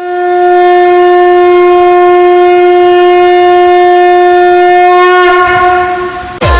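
Conch shell (shankh) blown in one long, steady, loud note for about five seconds, wavering as the breath runs out. A short deep boom falling in pitch comes near the end.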